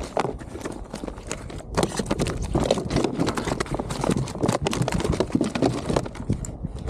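A freshly landed fish thrashing on a plastic kayak deck, a rapid, irregular run of knocks and slaps against the hull.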